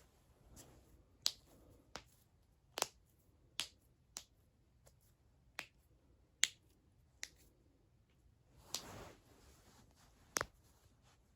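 Human joints cracking: about nine sharp pops at irregular intervals, with a brief soft rustle-like swell about nine seconds in.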